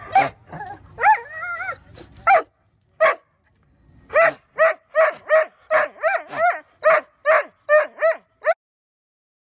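A dog giving high-pitched yips and barks: a drawn-out wavering whine about a second in, a few single yips, then a fast run of short yips, about three a second, that stops abruptly near the end.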